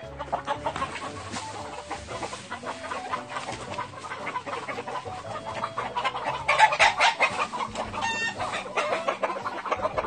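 A flock of cheonggye (green-egg-laying) chickens clucking and calling in a poultry hoophouse, with a stretch of louder scuffing and rustling a little past the middle.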